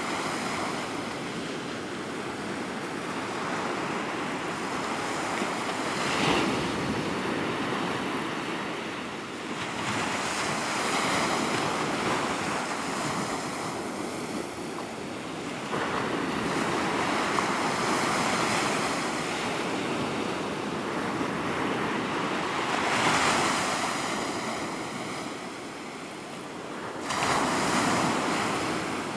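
Surf breaking on the shore: a steady wash of waves that swells into louder surges every five seconds or so as each wave comes in, with some wind on the microphone.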